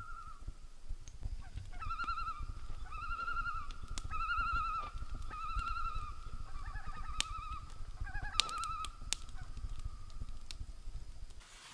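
A common loon giving a run of wavering tremolo calls, repeated every second or so. A few sharp clicks fall among the calls.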